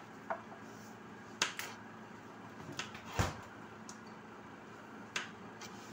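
Paring knife knocking on a plastic cutting board as okra is sliced into pieces: about seven sharp, irregularly spaced taps, the loudest a little after halfway.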